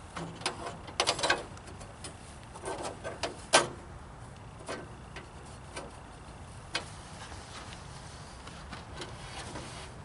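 Steel band-saw blade being handled and fitted onto the wheels of a portable band sawmill: a series of sharp metallic clicks and clanks, a quick cluster about a second in and the loudest single clank about three and a half seconds in, then fainter knocks.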